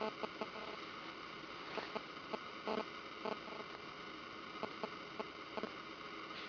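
Mac mini (early 2009) hard drive seeking during boot: a quick run of small clicks at the start, then scattered irregular ticks over a steady hiss.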